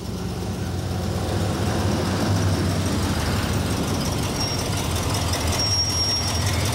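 Engine of a red box-body fire department rescue truck running as the vehicle moves across the yard, a steady low rumble that grows louder over the first couple of seconds. A brief thin high whine or squeal shows up about two-thirds of the way through.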